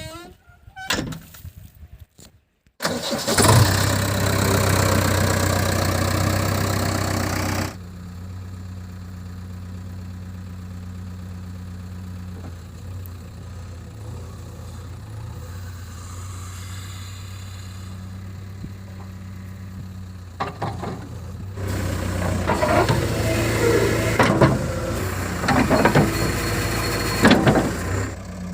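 Heavy diesel engine of an earth-moving machine running. It comes in suddenly and loud about three seconds in, drops to a steady idle, then works harder again near the end with clanks and knocks.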